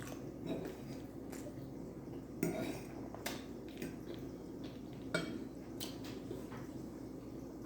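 Metal cutlery clinking and scraping against a dish during eating, a scattered handful of sharp clicks, over a low steady hum.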